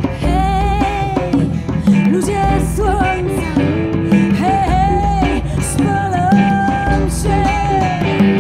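A band playing live, with acoustic and electric guitars, electric bass and drum kit, while a woman sings a wavering melody over it.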